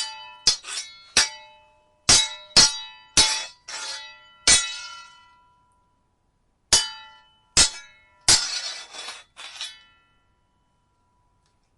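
Steel sword blades clashing: a quick run of sharp, ringing clangs, a pause of about two seconds, then three more strikes, the last drawn out into a longer grating scrape of blade on blade.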